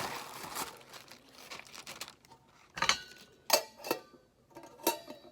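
Plastic packaging crinkling as the pieces of a small metal camping cook set are unwrapped. From about halfway in come several sharp clinks as the pieces knock together, each ringing briefly.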